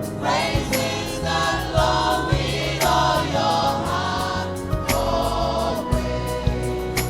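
Gospel praise music: a group singing together over bass and drums with a steady beat.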